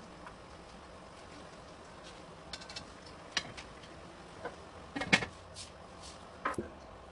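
Tomato sauce simmering in a wok with a faint steady hiss, broken by several sharp clinks and knocks of cookware, the loudest about five seconds in.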